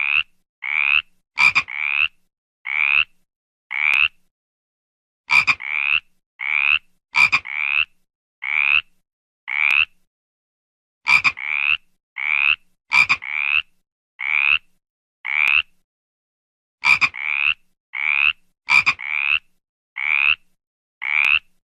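A frog croaking: short rising croaks about once a second, in bouts of five or six separated by brief silences. A few croaks open with a sharp click.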